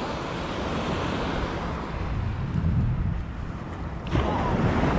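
Wind buffeting the microphone over the wash of surf breaking on a beach, getting louder about four seconds in.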